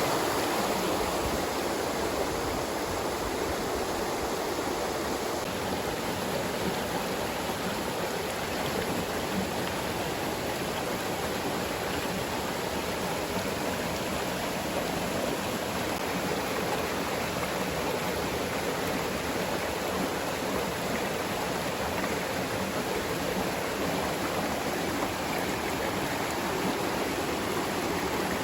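Flowing water rushing steadily, an even, unbroken noise without any separate splashes or drips.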